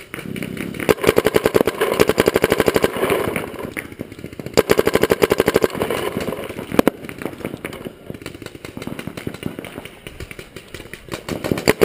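Electronic paintball marker, a Proto Reflex Rail, firing rapid strings of shots at roughly a dozen a second, with pauses between strings and scattered single shots. One sharp crack stands out near the middle.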